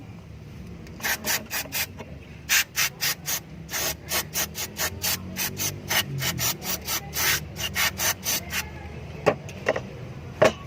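Rapid back-and-forth scraping strokes of hand work on a small engine part, about three or four a second, stopping after about eight seconds, followed by three sharp knocks near the end.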